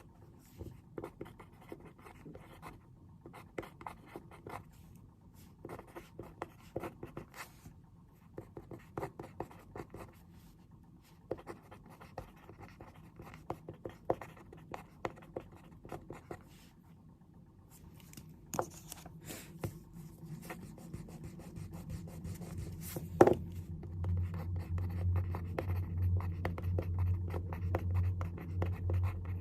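Pen writing on paper at a desk: a run of short scratching strokes and taps. A sharp click stands out about two-thirds of the way in, and a low steady hum comes in near the end.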